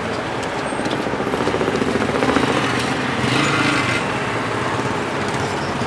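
Engines of slow, stop-and-go road traffic. A small engine's fast firing rhythm swells and passes close about two seconds in, and a brief hiss follows about a second later.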